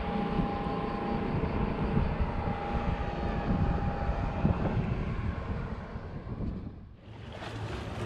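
Wind rumbling and buffeting on the microphone out on the sea. For the first half a faint, steady whine of a boat motor runs under it. About seven seconds in the sound cuts abruptly to a different, quieter wind and water hiss.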